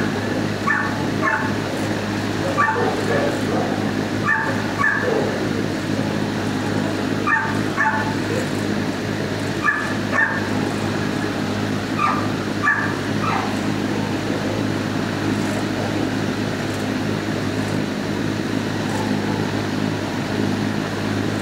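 Dogs in a shelter kennel block barking: short barks, often in pairs, every second or two, thinning out about two-thirds of the way through. A steady low hum runs underneath.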